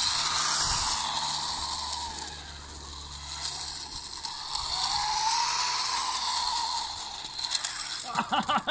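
Electric drive motors of a 3D-printed RC tank with PLA tracks whining as it speeds across grass, the pitch rising and falling twice as it accelerates and slows, over a steady hiss from the running gear.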